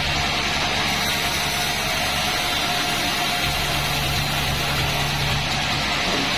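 Band-saw sawmill machine running steadily, a constant mechanical hum with a steady whine over it; the low hum grows stronger for a couple of seconds from about the middle.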